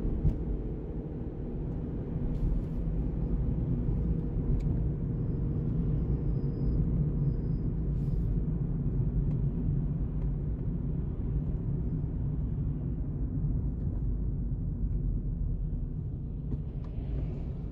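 Steady low rumble of a car travelling at highway speed: tyre and engine noise heard from inside the car, with a few faint ticks.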